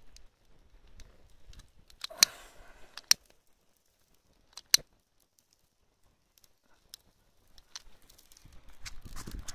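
Sharp single clicks of a long-reach utility lighter's trigger, three of them a second or more apart, the first followed briefly by a hiss. A low rustling, crackling noise builds near the end as the dry hay catches and burns.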